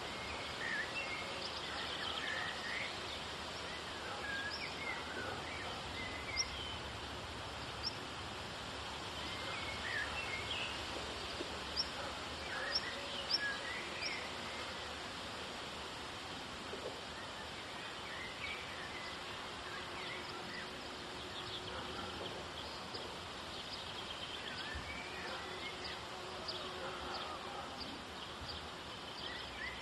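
Several birds chirping and singing in short, scattered phrases over a steady outdoor hiss.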